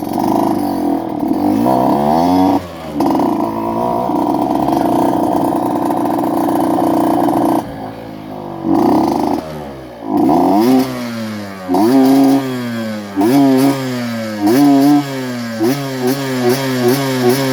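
Modified Yamaha F1ZR two-stroke single-cylinder motorcycle engine being revved: held at high revs at first, then a series of throttle blips, each a rising pitch that drops back, coming shorter and quicker toward the end.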